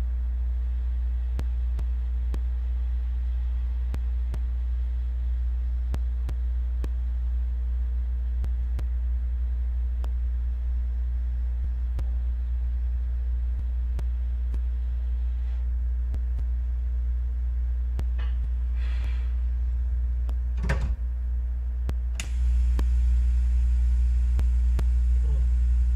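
Steady low electrical mains hum with faint scattered ticks and two brief scraping noises near the end. About 22 seconds in, the hum gets louder and a second, higher hum and a hiss come in.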